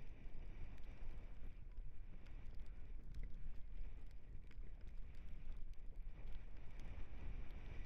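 Wind buffeting the microphone over the rumble of a dog scooter's wheels rolling on a dirt trail, with scattered short clicks.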